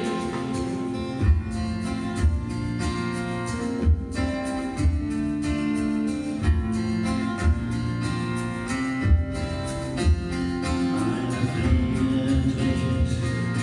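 Two acoustic guitars playing an instrumental passage live through a PA, strummed chords with a low pulse about once a second.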